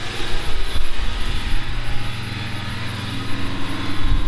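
Twin 420-horsepower Caterpillar diesels of a 43-foot sportfishing boat running hard at planing speed: a steady deep drone under the rush of wind and churning wake water.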